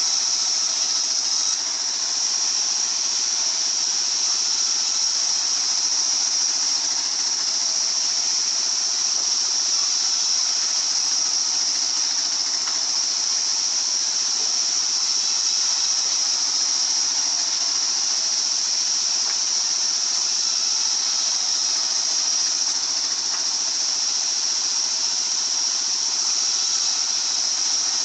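Sawmill circular saw running steadily with a high-pitched whine.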